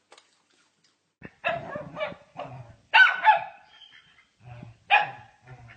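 A dog barking: a run of short barks beginning about a second in.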